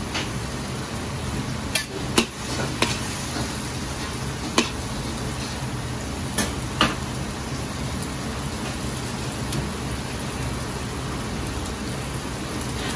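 Sliced pork belly sizzling and hissing in a large iron wok, over a steady low rumble. A steel wok ladle knocks and scrapes against the wok several times in the first seven seconds.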